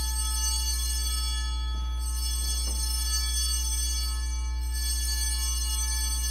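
Altar bells ringing at the elevation of the host during the consecration. They are rung afresh about two seconds in and again near five seconds, each ring lingering and fading, over a steady low hum.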